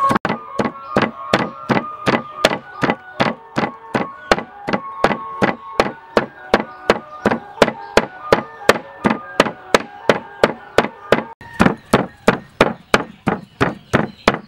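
Steel cleaver chopping raw pork on a wooden chopping board, a steady rhythm of about three blows a second as the meat is minced.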